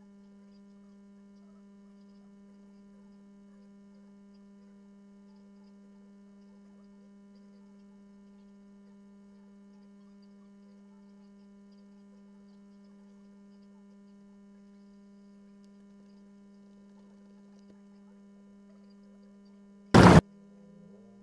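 Steady electrical hum, a low tone with fainter overtones. About a second before the end, a single very loud burst of noise cuts in for a fraction of a second.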